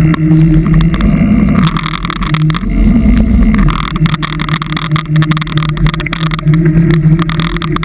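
A vehicle's engine runs with a steady drone while driving, its pitch briefly rising and falling about three seconds in, over loud road noise with frequent sharp clicks and knocks.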